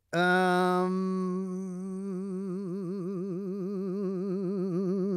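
A man's voice holding one long hummed note, steady at first and then wavering from about two seconds in. It is a drawn-out suspense hum before a ranking verdict is announced.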